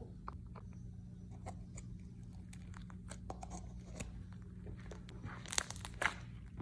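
Slime being stretched and squished by hand: scattered faint sticky clicks and small pops, with a few louder crackles about five to six seconds in.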